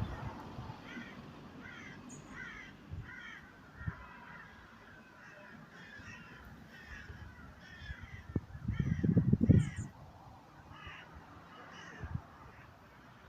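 A flock of birds calling over and over with harsh, crow-like caws. A loud low rumble lasts about a second and a half a little after the middle.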